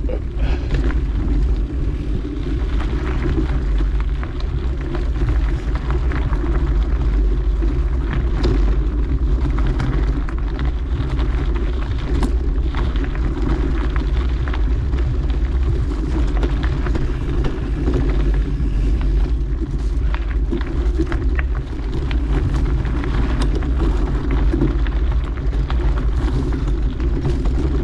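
Mountain bike being ridden on a dirt trail: a steady low rumble of wind and tyre noise, with many small clicks and rattles from the bike over the ground.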